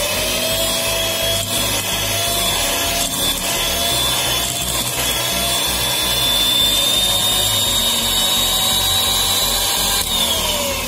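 Electric hand mixer running steadily with a motor whine, its beaters whipping a thick cream cheese and whipped cream filling in a glass bowl. It spins up at the start and winds down near the end.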